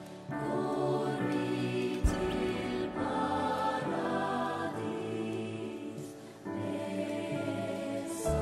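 Background music with choir-like singing in slow, held chords. One short knock sounds about two seconds in.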